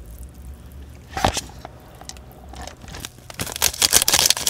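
Close-miked eating sounds of spicy instant noodles: chewing, with one sharp burst about a second in, then a dense run of crackly, wet noises near the end as chopsticks stir the noodles in the cup.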